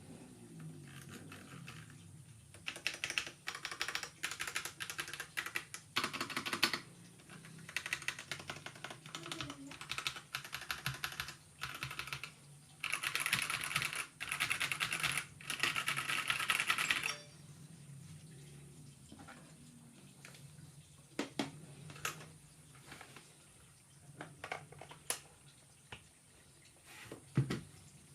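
Typing on a Zifriend ZA68 mechanical keyboard with factory-lubed TNT linear switches. Fast runs of keystrokes give way, about two-thirds of the way in, to a few scattered single key presses.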